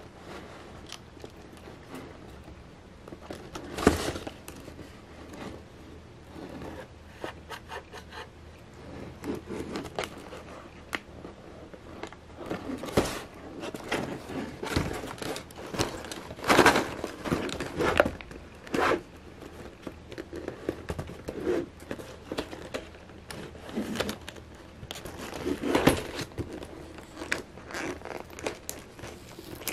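Cardboard potato-chip box being handled and turned in the hands: fingers scraping, rubbing and tapping on the card, with a few louder knocks. Near the end, fingers pick at the box's opening flap.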